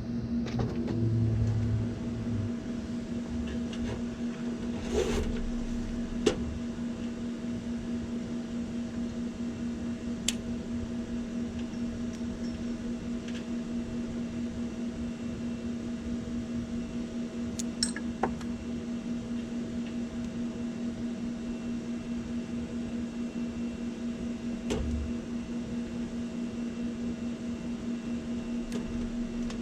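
Steady electrical hum of running air-conditioning equipment, with a few sharp clicks of hand tools as the condenser fan-motor wires are cut.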